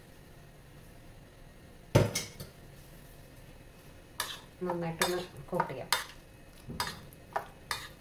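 A metal spoon stirring in a ceramic bowl of batter and clinking against it. One sharp clink comes about two seconds in, then a run of clinks with brief ringing from about four seconds in.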